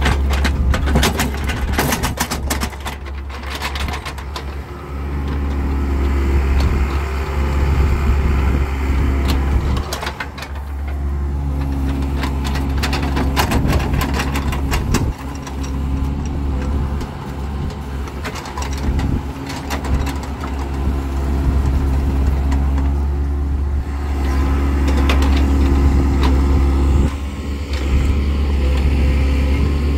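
Mini excavator's diesel engine running steadily under load while the hydraulic arm works, with scattered knocks and scrapes as the bucket digs and dumps wet mud. The engine grows louder near the end.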